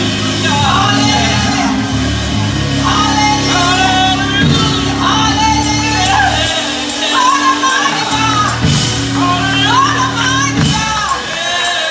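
A woman singing a worship song into a microphone through the church's PA, over held low accompanying chords. The chords drop out for a couple of seconds about six and a half seconds in and again near the end.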